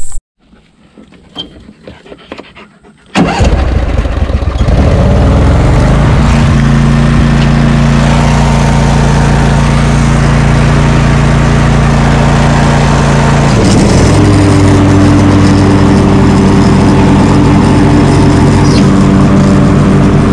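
Riding lawn mower engine, coming in abruptly about three seconds in and then running steadily under load; its note shifts about two-thirds of the way through.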